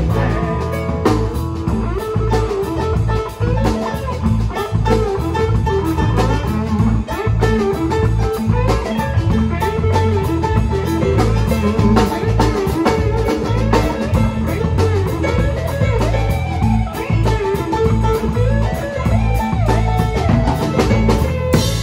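Live rock band playing an instrumental passage with a bluesy feel. An electric guitar plays a lead line with bent notes over a drum kit and bass.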